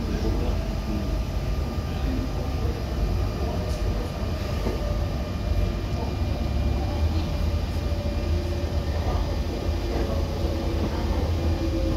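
Inside a moving RER D double-deck suburban train: a steady deep rumble and rattle of the carriage on the track, with faint tones shifting slightly in pitch.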